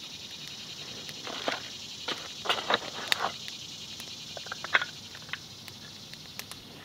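Small wood fire of twigs and bark crackling, with irregular sharp pops, clustered in the first half, over a steady faint high hiss.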